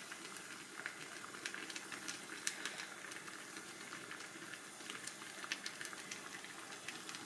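Water simmering in a double boiler under a pitcher of melted wax: a faint steady hiss with many small scattered ticks and pops.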